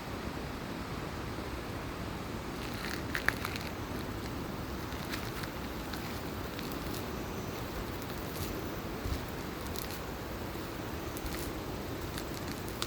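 Steady rushing of a mountain valley stream, with a few sharp clicks scattered through it, the loudest about three seconds in.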